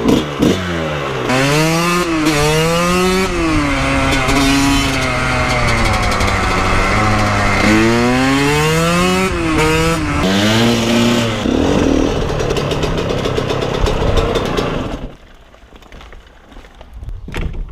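Dirt bike engine accelerating through the gears, its pitch repeatedly rising and then dropping at each shift. The engine cuts off about fifteen seconds in, followed by a brief knock near the end.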